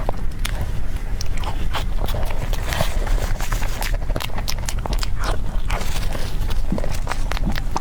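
Close-up eating sounds: cake being bitten and chewed, with many small irregular clicks and crackles over a steady low rumble.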